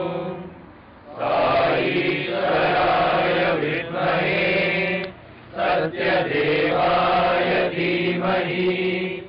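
A group of men chanting a prayer in unison, with long held notes and short breaks for breath about a second in and about five seconds in.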